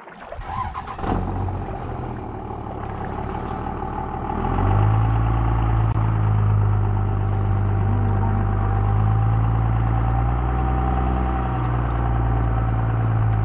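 An engine running at a steady speed, a low even-pitched drone that swells in during the first second and gets louder about four and a half seconds in, then holds steady.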